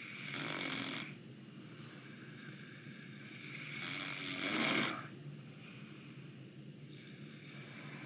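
A sleeping man snoring through his nose: two loud snores about four seconds apart, the second longer and building before it stops sharply, with a fainter snore starting near the end.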